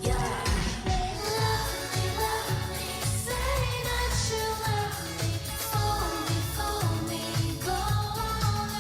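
Pop song with women singing over a steady beat of about two bass pulses a second.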